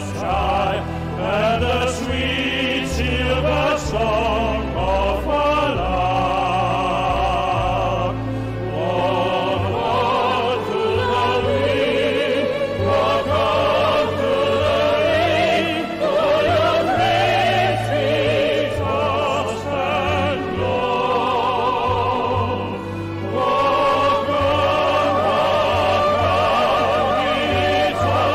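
Background music: operatic singing with wide vibrato over low sustained accompaniment.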